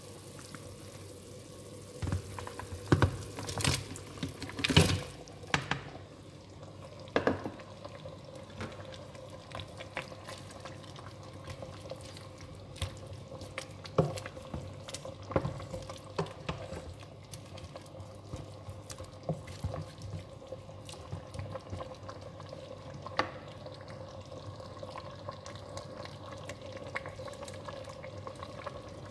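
A metal pot of soup cooking on the hob: a cluster of sharp knocks and clatters against the pot in the first several seconds, then liquid cooking with occasional clinks, over a steady hum.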